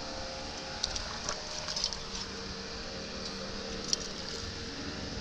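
Steady background hum with faint steady tones, broken by a few light clicks about one and two seconds in and again near four seconds.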